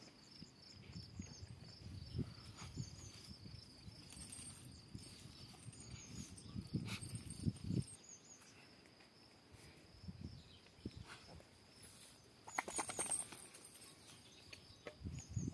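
A Kangal shepherd dog nosing at and starting to eat a roasted chicken: soft, irregular low knocks and shuffles, with a short run of sharp crackling clicks about twelve seconds in.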